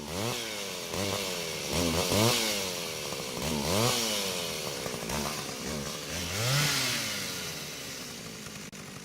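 Two-stroke chainsaw revved up and down several times, its engine pitch climbing and dropping with each blip of the throttle, the loudest rises about two, four and six and a half seconds in.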